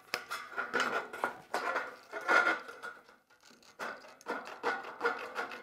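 Aviation snips cutting across sheet-metal window trim to cut it to length: a run of quick, sharp snips with a brief pause about three seconds in.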